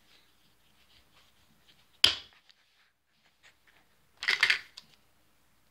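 A single sharp plastic knock about two seconds in, then a brief clatter of small plastic Play-Doh tools being rummaged through about four seconds in.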